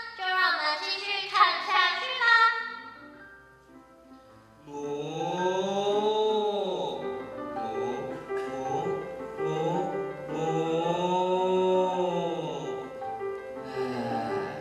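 A short stretch of voice at the start, then stage-play background music: a slow melody of long tones that rise and fall in two swells over held chords.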